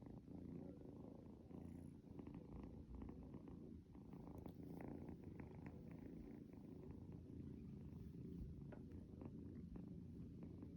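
Kitten purring, faint and steady, with a few soft clicks.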